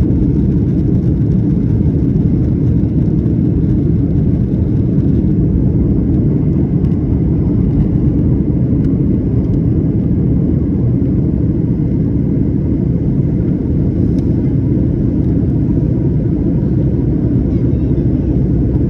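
Airliner jet engines and airflow heard from inside the passenger cabin: a steady, loud, low rumble that does not change.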